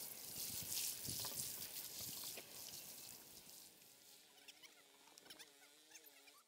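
Water from a watering can's rose pattering onto loose soil, a steady hiss that fades away about three seconds in. After that a faint wavering, whining pitched sound comes in.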